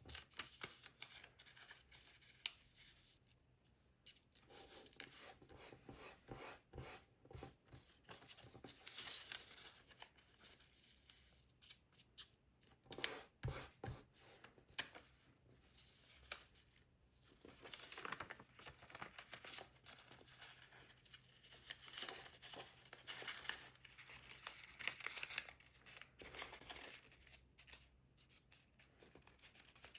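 A sheet of paper being handled and folded by hand, with soft intermittent rustling and scraping as it is creased.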